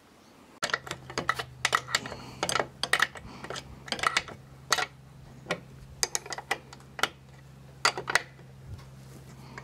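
Irregular metallic clicking, in quick clusters of several a second, as a hand tool tightens the ball-stud fitting of a gas strut on a rooftop tent's aluminium rail.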